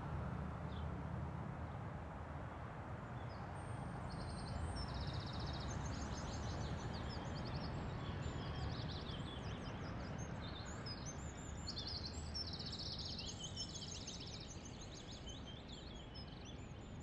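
Outdoor ambience: a steady low background rumble, with small birds chirping and trilling over it from about four seconds in. It fades slightly toward the end.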